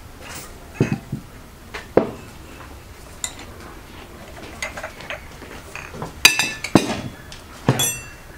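Metal serving spoon clinking and scraping against ceramic plates as food is dished out: a handful of sharp separate clinks, two of them near the end ringing briefly.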